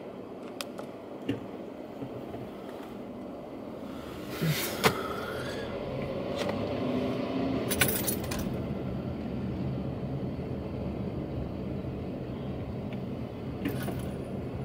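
Steady low road and engine noise inside a car driving slowly along a city street, broken by short sharp clinking rattles about four and a half, eight and fourteen seconds in.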